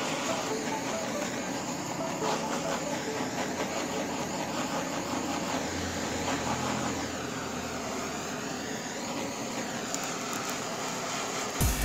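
Handheld gas blowtorch burning with a steady hiss as its flame singes the hair off a pig's trotter.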